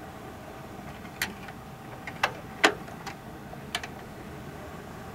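Aiwa PX-E770 automatic turntable's return mechanism clicking and clunking, about five sharp clicks, as the tonearm lifts off the record and swings back to its rest.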